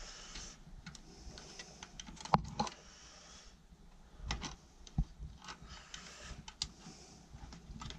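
Scattered light clicks and taps of fingers handling a plastic wall thermostat's backplate and its screw. The sharpest clicks come about two and a half and five seconds in.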